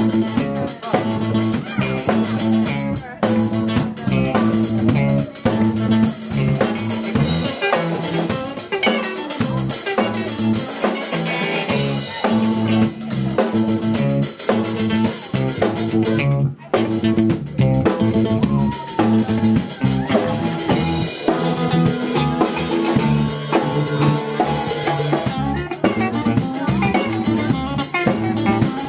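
A small band playing live on drum kit and guitar, with the music stopping for a split second about halfway through.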